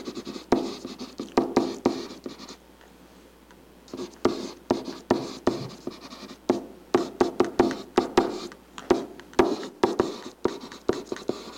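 Stylus writing on an interactive touch surface: quick scratching strokes and tapping ticks as words are handwritten, with a brief pause about three seconds in.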